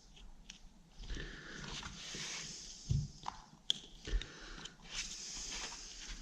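Freshly pasted lining paper being peeled back and handled against the wall: rustling, with a few light taps and knocks near the middle.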